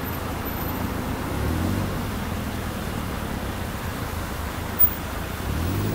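Steady city traffic noise, with a low rumble swelling twice and a brief sharp click a little before the end.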